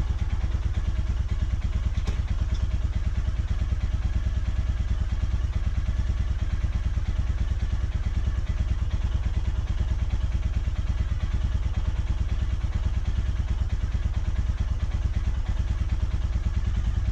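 Royal Enfield Himalayan's single-cylinder engine idling steadily with an even low beat, in gear on the center stand so the rear wheel and chain turn without load.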